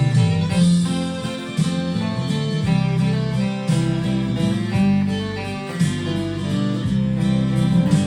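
Instrumental break in a country gospel song: guitar playing over a recorded backing track, with no singing.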